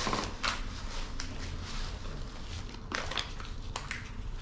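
Plastic Easter eggs and candy wrappers being handled on a table while the eggs are filled with candy and paper money: scattered light clicks and rustles.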